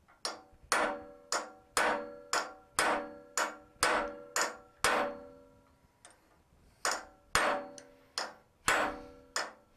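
Ball-peen hammer striking a mild steel rivet setter on a hot, MAP-gas-heated rivet set in a steel plate on a railroad-rail anvil: sharp, ringing metal-on-metal blows about two a second. A pause of about two seconds comes midway, then another run of blows.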